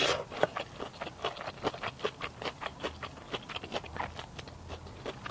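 A person chewing food close to the microphone: a steady run of short mouth clicks, several a second.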